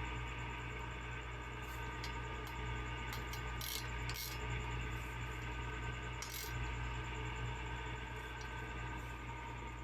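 Steady low hum with several constant tones over it, and a few light metallic clicks and clinks scattered through.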